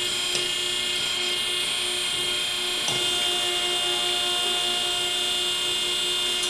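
Electric hydraulic power unit running with a steady whine, driving the cylinder of a Hossfeld No. 2 bender as it bends flat bar stock under load.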